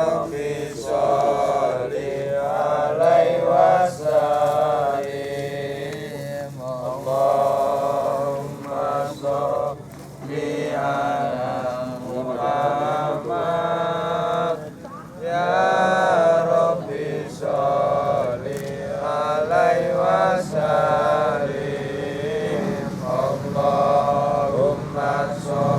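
A voice chanting a prayer in long, drawn-out melodic phrases with brief pauses between them.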